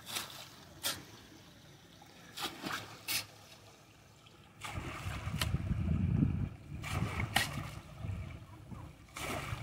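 Hoe blade chopping into wet mud and gravel, several sharp strikes in the first few seconds, over a faint trickle of running water. About halfway in a low rumble comes in and stays, with more strokes on top of it.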